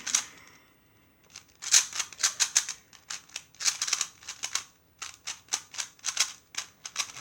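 2x2 speed cube being turned quickly by hand, its plastic layers clacking in fast runs of clicks that start about a second in and keep going.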